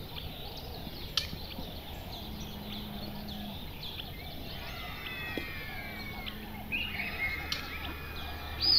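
Birds chirping and calling, many short notes and gliding calls overlapping over a steady outdoor background, with a few sharp clicks and one louder high note near the end.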